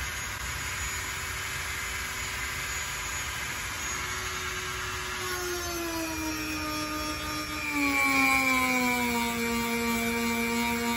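Dremel rotary tool with a small sanding drum running, sanding the rubber of a bicycle-style inner tube repair clean for patching. It makes a steady high whine that drops in pitch and grows louder a little past halfway through.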